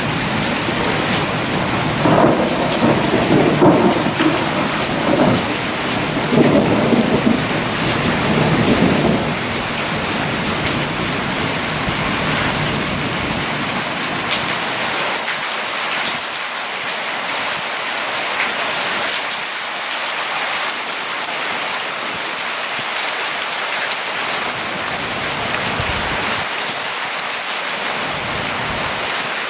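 Steady rain falling, with a long roll of thunder rumbling from about two seconds in and dying away after about nine seconds, leaving the rain alone.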